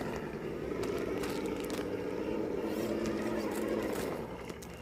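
Red Cat Ascent Fusion RC rock crawler's electric motor and gearbox whining steadily as it crawls over rocks, with scattered clicks and scrapes of the tires and chassis on rock.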